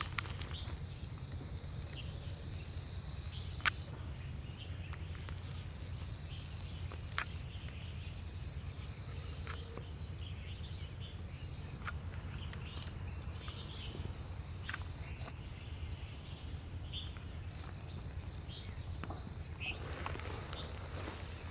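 Outdoor ambience: a steady low rumble with scattered faint chirps and ticks, and one sharper click about four seconds in.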